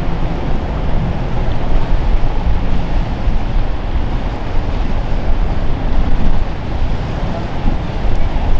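Wind rumbling on the microphone over the rush of surf and boats running through a rough inlet. It is a steady, uneven rush with no clear tones.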